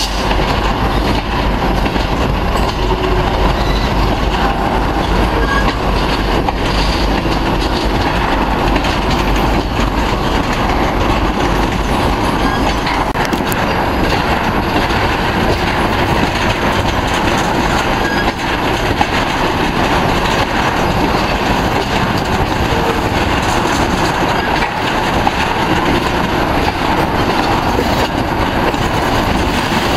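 Freight train cars rolling past close by: a steady rumble and clatter of steel wheels on the rails. A deep low rumble underneath drops away about halfway through.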